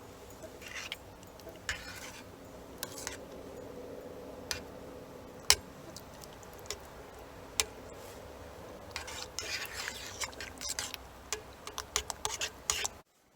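A spoon stirring and scraping in a pan of cooking soup and pasta, with scattered sharp clinks of the spoon against the pan and a busy stretch of scraping near the end. The sound cuts off abruptly just before the end.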